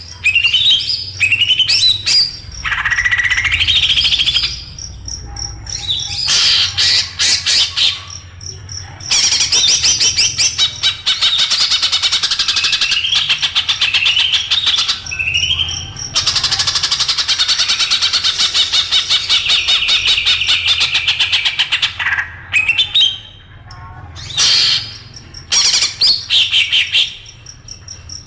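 Songbird master-song (masteran) recording: dense, harsh chattering song packed with very fast trills and repeated rising whistles, in long runs broken by a few short pauses.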